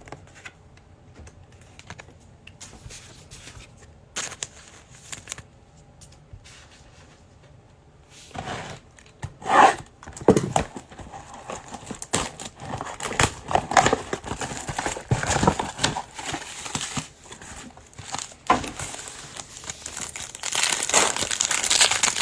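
Trading-card pack wrappers crinkling and tearing as packs are opened by hand; faint handling clicks at first, with the loud crinkling starting about eight seconds in.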